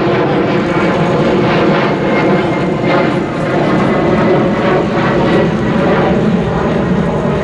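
A steady, loud mechanical roar, with a faint high tone drifting slowly down in pitch.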